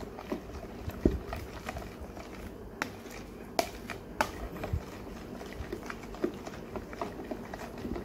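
A spoon stirring a wet dough mixture in a plastic bowl, with irregular clicks and taps as it knocks against the bowl, over a low steady hum.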